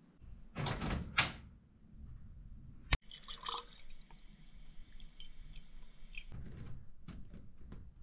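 Tap water running into a glass spray bottle for about three seconds, then cutting off suddenly. Two short knocks come about a second in, a sharp click just before the water starts, and small handling clicks near the end.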